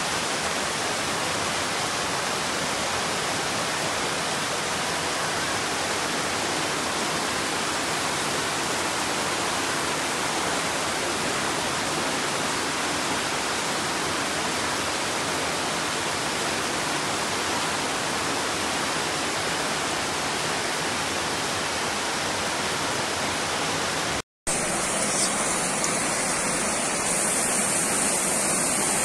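Heavy rain pouring and floodwater rushing, a loud steady hiss. About 24 seconds in it cuts out for a moment, and the rush of fast, muddy floodwater follows.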